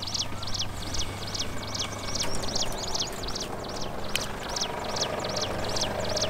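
A bird repeating a sharp, high, falling chirp about three times a second, very evenly, over the low steady running of a Ford Endeavour's engine as the SUV crawls over rough ground.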